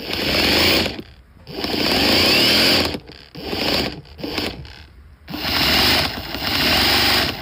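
Ryobi XBRH-18 brushless cordless rotary hammer drill running in hammer-and-drill mode, the motor whirring with the rapid rattle of the hammer action. It is triggered in a series of short bursts of about a second each, with brief pauses between.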